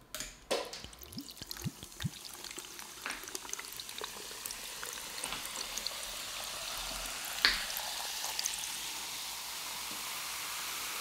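A drink sloshing and trickling in a tumbler, with scattered clicks and a few short gurgles early on and one sharper click about halfway through, over a hiss that slowly builds.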